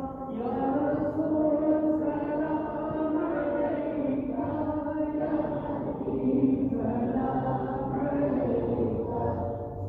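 A group of men and boys chanting an Islamic devotional recitation together without instruments, in drawn-out phrases.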